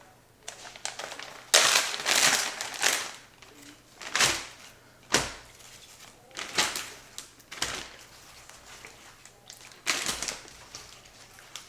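Plastic freezer bag crinkling in irregular bursts as it is handled and filled with sliced apples, with a few sharp knocks.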